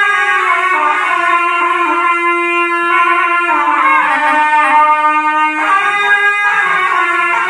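Two zurnas, loud double-reed shawms, playing together: a melody of long held notes that step up and down over a lower sustained note.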